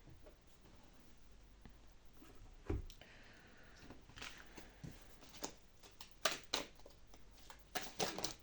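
Tarot deck being shuffled by hand: irregular soft card clicks and flicks, sparse at first and busier in the second half, with one dull thump nearly three seconds in.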